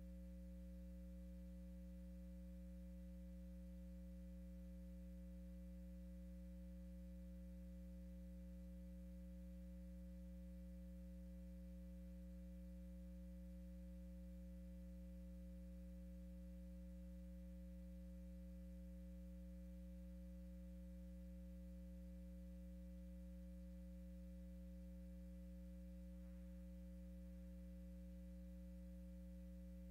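Faint, steady electrical hum on an otherwise silent audio feed: a low, unchanging buzz with no other sound.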